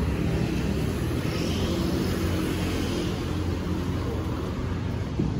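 Street traffic: vehicle engines running with a steady low rumble.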